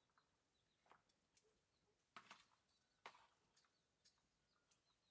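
Near silence with a few faint clicks and soft rustles, and some very faint high chirps.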